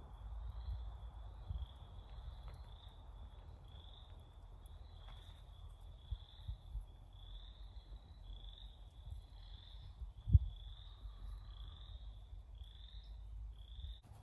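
A calling creature, frog or insect, giving a steady series of short high chirps, about three every two seconds, over a low rumble. A single sharp thump comes about ten seconds in.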